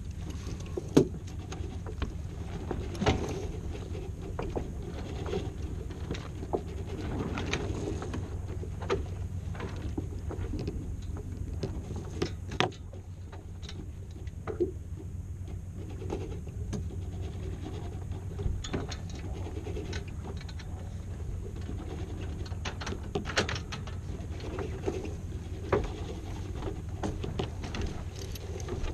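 Steady low rumble of wind and water around a small sailboat, with scattered knocks and clunks of deck gear as the spinnaker pole and lines are handled during a singlehanded spinnaker gybe.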